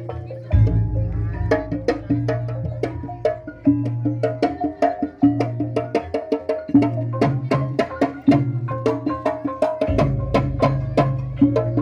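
Kuda kepang gamelan ensemble playing, with kendang drums and struck gongs and metallophones in a quick, dense rhythm of sharp strikes over a recurring low note. A deeper boom comes in about half a second in and again near the end.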